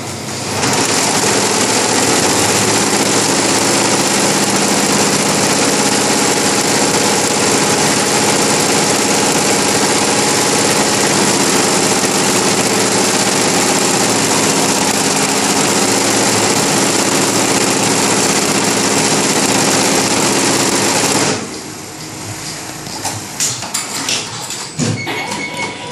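Tajima multi-head embroidery machine stitching caps, running loud and steady, then cutting off sharply about 21 seconds in, leaving quieter scattered clicks.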